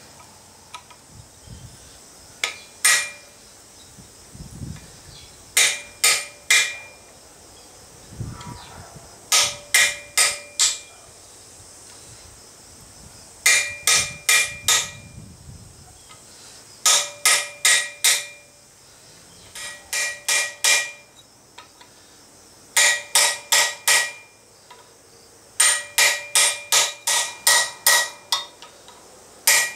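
Hand hammer striking a hot chisel held on a red-hot steel tong blank on the anvil, cutting the split line for the bolt jaw. The blows come in quick clusters of three to six, with short pauses between, and each blow rings metallically.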